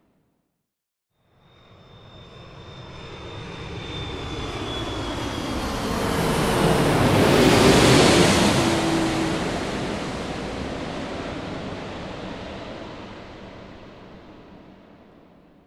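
An airplane flying over: its engine noise swells out of silence, peaks about halfway through, then fades away. A high whine and a lower tone slide down in pitch as it passes overhead.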